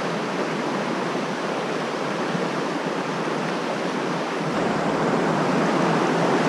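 Mountain stream rushing over rocks and rapids: a steady, even roar of running water that grows slightly fuller and louder about four and a half seconds in.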